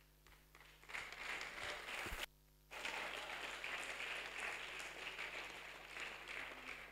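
Audience applauding, starting about a second in, breaking off briefly and then dying away near the end.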